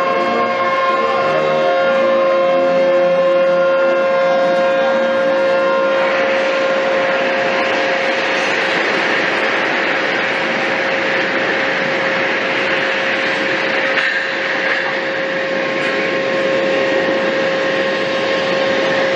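Ship's horns sounding a long, steady chord at a warship's launch down the slipway. About six seconds in, a loud, continuous scraping rattle of heavy drag chains being hauled across the quay takes over, with the horn tone still under it.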